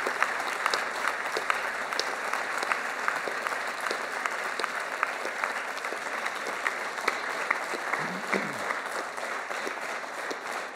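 Applause from a chamber full of seated members: a steady round of clapping that eases off slightly toward the end.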